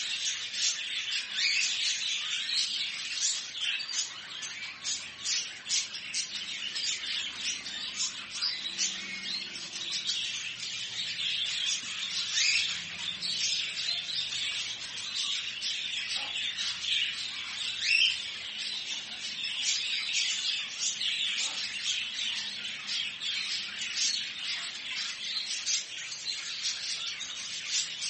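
Many caged birds chirping, tweeting and squawking at once in a pet bird shop, a dense, unbroken chatter of short high calls.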